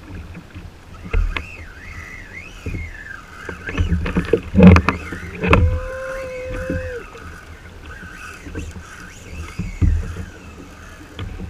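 Water splashing and lapping against a plastic fishing kayak's hull, with knocks and thumps from the angler working the rod, loudest about four to five and a half seconds in. A brief steady whine sounds in the middle.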